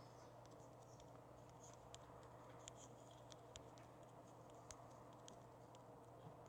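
Near silence: room tone with a steady low hum and a scattering of faint, light clicks.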